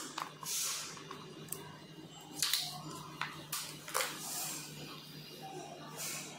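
Close handling noise of electrical wires and plug connectors being worked by hand, with short rustles and a few small clicks over a steady low hum.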